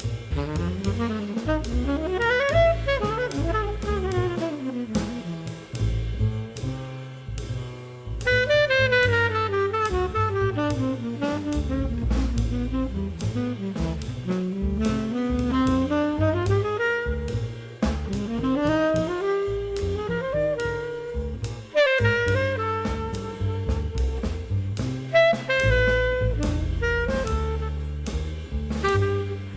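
Background jazz music: a saxophone melody running up and down over bass and drums.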